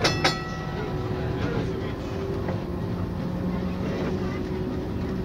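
NZH blue museum tram A327+B303 running along street track, heard from inside: a steady low rumble of wheels on rail with a faint motor hum. Right at the start come two sharp metallic clangs that ring on briefly.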